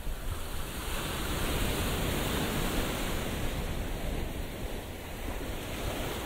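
Sea waves breaking and washing up the beach, a steady rush of surf that swells about a second in and eases off near the end.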